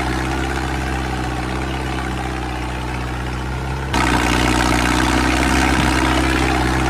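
Steady engine-like drone of a running mini tractor, even and unbroken, jumping suddenly louder about four seconds in.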